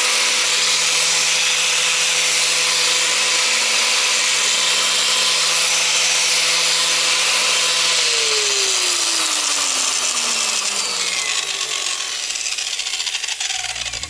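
Electric angle grinder running at full speed with no load, its gearbox freshly repacked with Litol-24 grease after repair. About eight seconds in it is switched off and winds down, its whine falling steadily in pitch over the remaining seconds.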